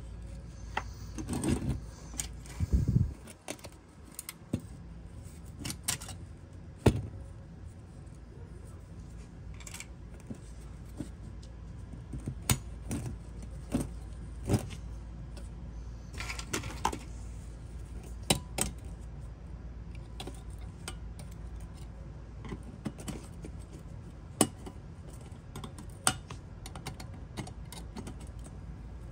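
Parts of a diecast model car being handled and taken apart: irregular light clicks and knocks of the metal body, chassis and interior pieces against each other and the hard work surface, with a short scraping rustle about halfway through, over a steady low hum.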